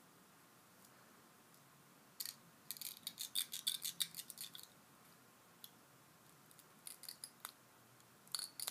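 Eyebrow brush dragged through eyebrows clogged with dried liquid latex, giving runs of crisp crackling clicks: a long run about two seconds in, then shorter runs near the end. It sounds really weird.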